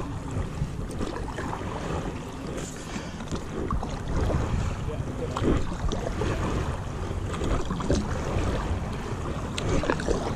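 Wind buffeting the microphone with a low rumble, over the irregular splash and slosh of a stand-up paddle stroking through calm water.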